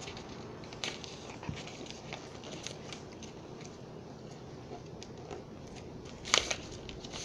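Paper airplane's printer paper rustling and crackling as its wings are folded down and creased by hand, with scattered faint crinkles and a louder crisp rustle about six seconds in.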